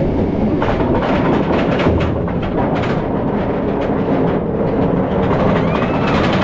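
B&M dive coaster train climbing its chain lift hill: a steady rumble of the lift chain with rapid, irregular clacking from the anti-rollback.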